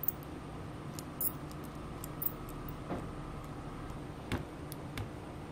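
A handful of sharp, scattered clicks and ticks from a small screwdriver and side-cutter pliers working a tiny screw in a small plastic gear assembly, over a steady low hum.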